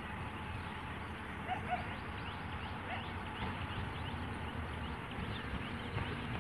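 Birds chirping, with many short downward chirps, over a steady low rumble from the CNG DEMU train approaching in the distance.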